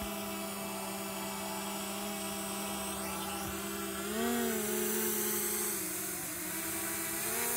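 Small camera drone's propellers whining with a steady hum. The pitch swells up briefly about four seconds in and again near the end as the drone climbs.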